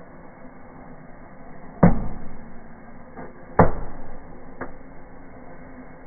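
Firecrackers going off: two loud bangs a little under two seconds apart, with two fainter pops between and after, over a steady hiss of burning fireworks.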